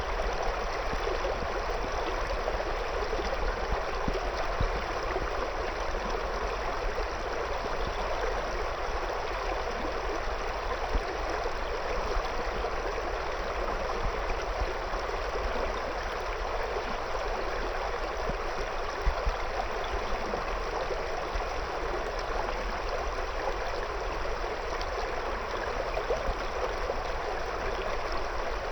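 Shallow river water flowing and babbling steadily around stones.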